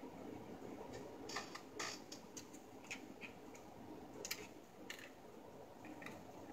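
A handful of faint, irregular clicks and light taps of small plastic parts being handled, from a ring light and tripod kit.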